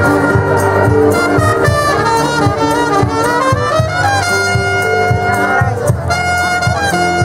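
Municipal brass and wind band playing a tune live, trumpets and French horn among the instruments, holding notes over a steady beat in the low end.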